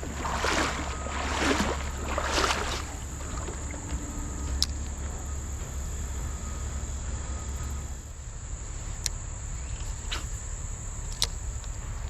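Three splashing wading steps through creek water about a second apart, then a steady high-pitched insect drone with a few sharp clicks.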